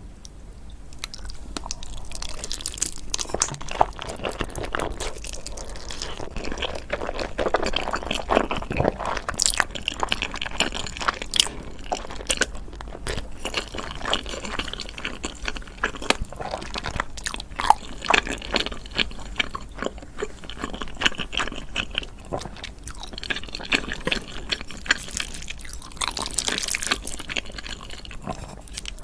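Close-miked eating: steady chewing and biting with many small crunching and wet clicking mouth sounds.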